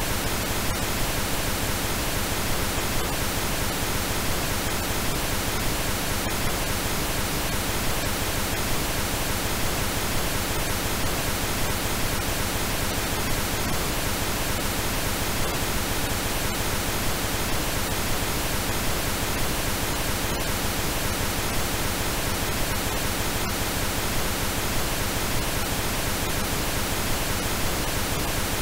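Steady generated pink noise, an even, unchanging hiss spread across low and high pitches. It is a shaped noise track that the uploader presents as an approximation of artichoke leaf's molecular magnetic field.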